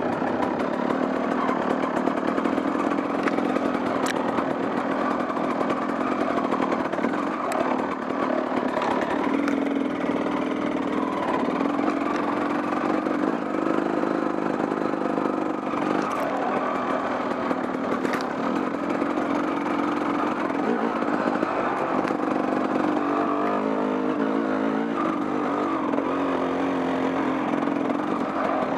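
Small off-road vehicle engine running at low, slightly varying revs while riding a trail, with a few sharp clicks.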